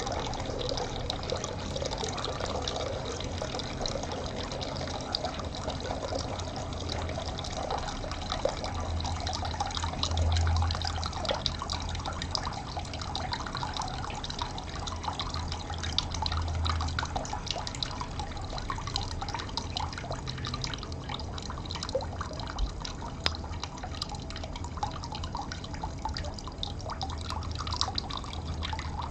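Water trickling and dripping steadily, full of small splashes and drips. A low rumble swells briefly about a third of the way in and again a little past halfway.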